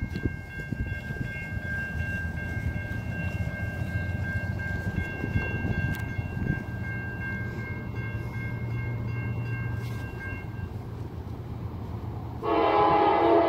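Low rumble of approaching Norfolk Southern diesel freight locomotives, then about a second from the end a loud multi-chime locomotive air horn starts blowing and holds steady.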